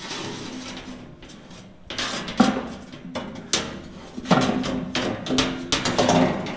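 A large sheet of Durabar steel tread plate being slid and shifted on a steel bin frame: scraping at first, then a string of sharp metal clanks and knocks from about two seconds in.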